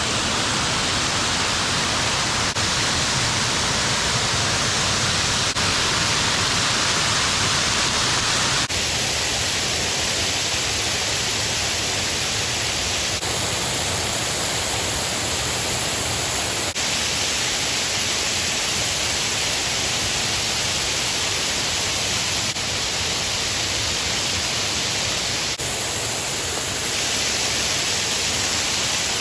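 Steady rushing roar of a strong waterfall, its tone shifting abruptly a few times.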